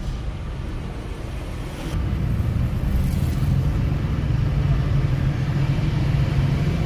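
Car driving in city traffic, heard from inside the cabin: a steady low rumble of engine and road noise, growing a little louder about two seconds in.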